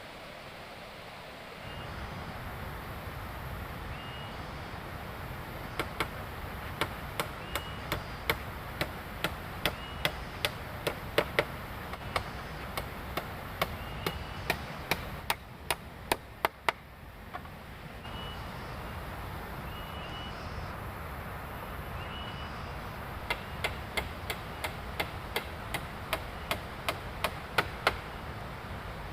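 Chopping at wood or bamboo: sharp strikes in runs of about two to three a second, stopping for a few seconds midway and then starting again, over a steady hiss.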